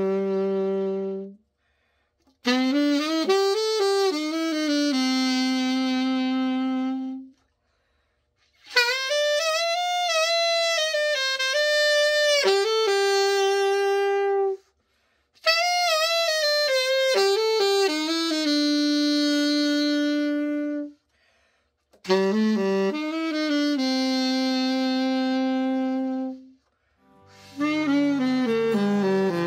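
Yamaha YAS-280 alto saxophone played in several melodic phrases of a few seconds each, with short breaks for breath between them. This is a play test of the horn after a full overhaul with dent repair and pad setting.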